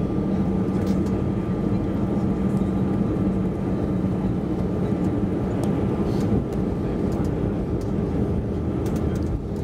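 Cabin noise inside an Airbus A320-216 on descent: the steady drone of its CFM56 engines and air rushing past the fuselage, heard from a seat over the wing, with a steady low hum.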